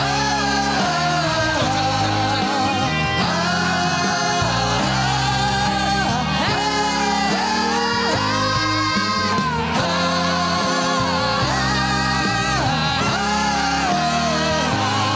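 Male voices singing the wordless 'ha-ah, ha-ah, ha-ah-ha-ah-ha' hook of a Mandarin pop-rock song into microphones, over loud band accompaniment.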